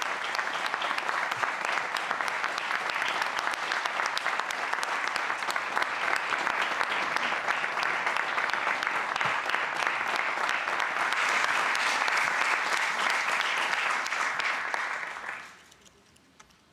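Audience applauding steadily, a little fuller near the end, then dying away quickly about fifteen seconds in.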